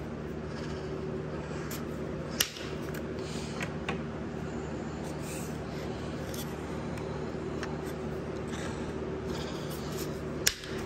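Hand-held PEX cutter snapping through blue PEX pipe: a sharp click about two and a half seconds in and another near the end, with a few lighter clicks between. A steady low hum runs underneath.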